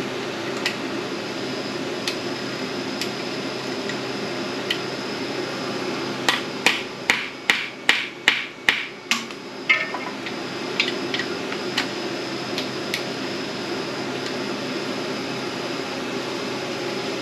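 Hand ratchet wrench working a bolt on an engine's front cover: a run of about ten sharp metallic clicks, two or three a second, in the middle, with a few lighter clicks on either side. A steady background hum runs underneath.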